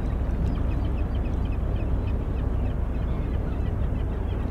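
Birds calling in many short, high chirps over a steady low rumble.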